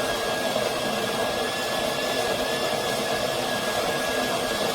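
The built-in conical burr grinder of a De'Longhi La Specialista Arte Evo espresso machine running steadily, grinding coffee beans into the portafilter: a motor hum and grinding noise with a constant high whine.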